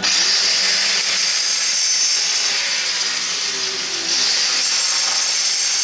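Power tool running steadily at full speed, a loud hissing whine that dips briefly about four seconds in, as it works on a cultured-marble counter.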